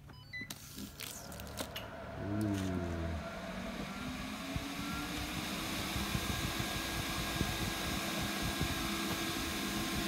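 RC charging case powering on: a quick falling run of beeps just after the start, then about two seconds in its cooling fans spin up with a rising hum and settle into a steady whirring rush of air.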